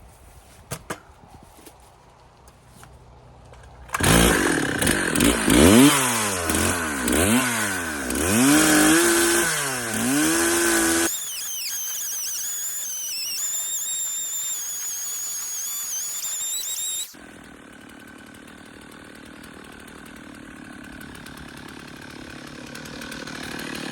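Stihl 066 two-stroke chainsaw with a 32-inch bar. After a few quiet seconds with a couple of clicks, it starts suddenly about four seconds in and revs up and down repeatedly. Then it runs steadily with a high whine, as when cutting into big cottonwood with a chain the owner thinks is in pretty bad shape. Near the end it runs more quietly and steadily, slowly getting louder.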